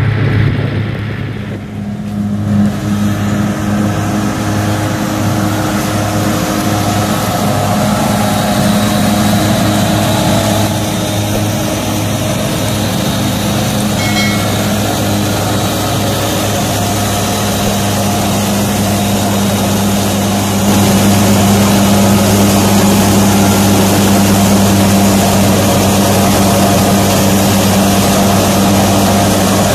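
Tractor engine running steadily under load, driving a PTO-powered straw reaper that chops wheat stubble into straw and blows it into a trolley: a constant engine hum over the machine's rushing whir. It gets louder about 21 seconds in.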